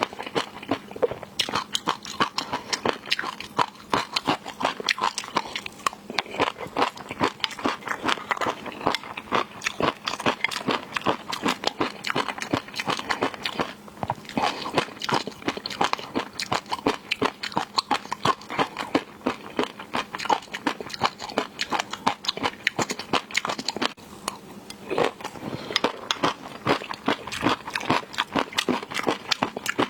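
Close-miked eating of seafood: a dense run of biting, crunching and wet chewing clicks, with a couple of brief pauses.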